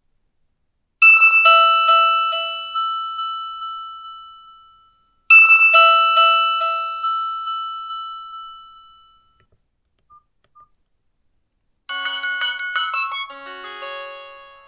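Nokia 5310 feature phone playing its default ringtones. A bell-like chime sounds twice, each ringing out and fading over about four seconds. Near the end a different ringtone starts, a quick melody of many short notes.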